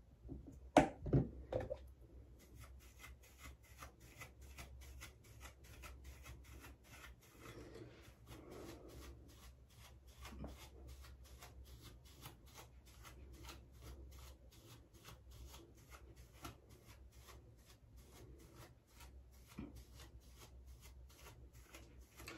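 Hairbrush strokes through short hair, an even run of soft brushing sounds about two to three a second, after a few louder knocks about a second in. A faint steady hum lies underneath.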